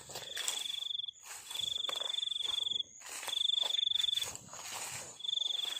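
A small night-calling animal trilling: high-pitched, finely pulsed trills about a second long, four in a row with short gaps, over faint rustling and clicking.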